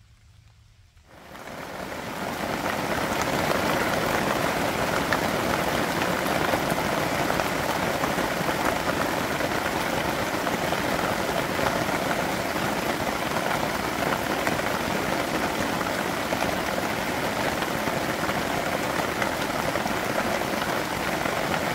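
Heavy rain pouring down, a dense, steady patter of drops that comes in about a second in.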